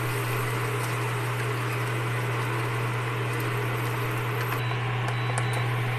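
Eggs being beaten with a wire whisk in a bowl, over a steady low electrical hum and hiss.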